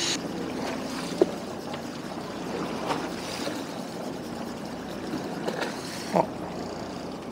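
Sea water splashing and lapping along the hull of a fishing boat. A sharp click comes about a second in, and a few lighter clicks and knocks follow.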